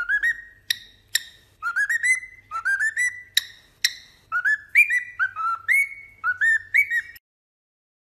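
A cockatiel whistles a run of short rising notes in quick groups, with a few sharp clicks mixed in. The sound cuts off abruptly about seven seconds in.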